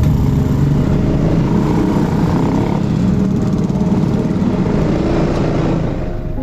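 Yamaha maxi-scooter running at low speed in traffic, its engine mixed with steady wind and road noise on the mounted camera's microphone.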